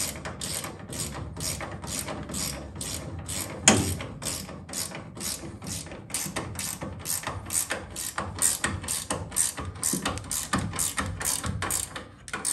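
Hand ratchet wrench clicking in quick, even strokes, about three a second, as the nuts on the power brake booster's firewall mounting bolts are run down. A single louder knock comes about four seconds in.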